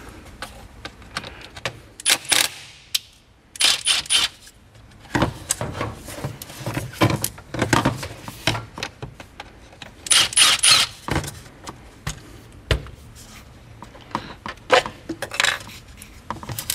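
Metallic clinks and rattles of hand tools and small metal parts being handled and set down, in about half a dozen short bursts with quieter gaps between.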